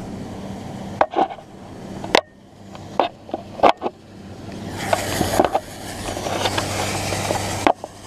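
Metal knocks and clanks of hands and boots on a steel grain bin's ladder during the climb, over a steady engine hum from the machinery running the grain auger. Near the end a rushing noise builds and then cuts off suddenly.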